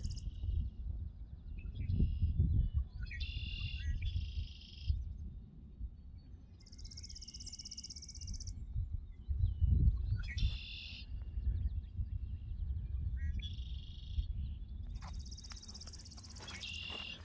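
Songbirds singing in open country: short, buzzy trilled phrases about a second or two long, repeating every few seconds at slightly different pitches, over a low, uneven rumble.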